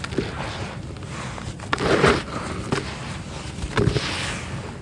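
Hands crumbling lumps of red dirt and letting it fall into a plastic basin: gritty crunching and pattering with sharp little cracks, and two louder crunches about two and four seconds in.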